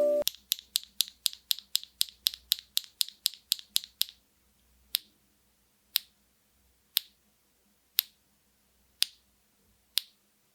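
Huano Grape Orange linear mechanical keyboard switch being pressed, giving sharp, thin clicks: about four a second for the first four seconds, then slowing to one click a second.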